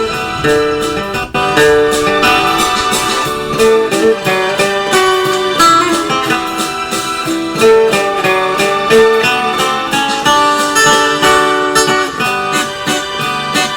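Background music led by a plucked, guitar-like string instrument playing a busy run of notes.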